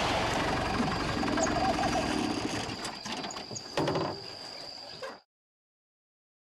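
Forest ambience: a steady high insect drone under a loud, even rushing noise. The noise weakens after about three seconds, with a short burst near four seconds, and everything cuts to silence about five seconds in.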